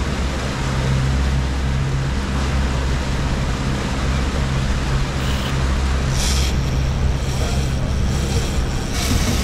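Fishing boat's engine running steadily offshore: a low hum under a constant rushing wash of water and wind noise.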